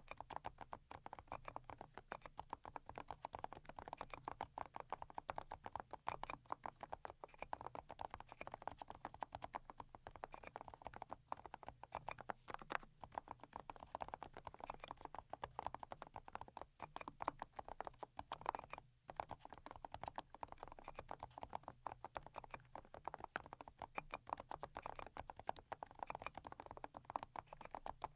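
Fast, continuous typing on a Pochiko custom mechanical keyboard whose switches have been fully hand-lubed, keystrokes clicking in quick succession with a brief pause about nineteen seconds in.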